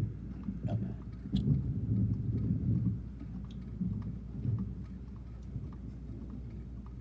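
Low rumble of distant thunder, strongest from about one to three seconds in and then dying down.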